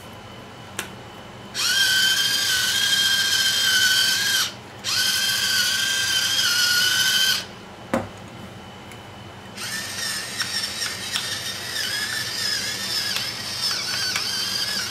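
Battery-powered electric salt and pepper mills grinding. A whining motor runs in two bursts of about three seconds, then comes a click, then a longer, rougher grind.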